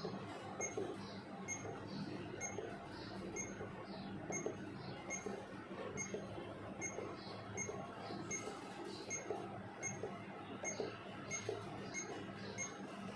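Short electronic beeps at one fixed pitch from an ultrasound machine's control panel, repeating about every half second, slightly unevenly, as a file list is scrolled step by step.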